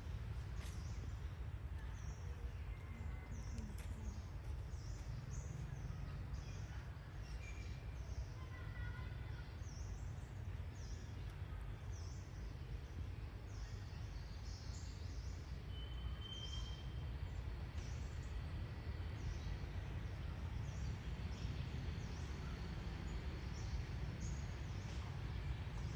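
Outdoor ambience: short high bird chirps repeating about once a second over a steady low rumble, with one brief higher whistle about two-thirds of the way in.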